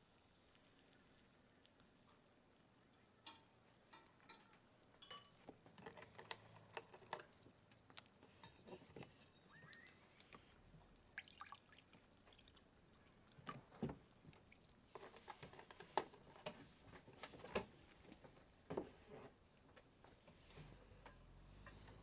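Quiet kitchen sounds: scattered light clicks and taps, and orange juice poured from a carton into a glass. A low rumble swells near the end.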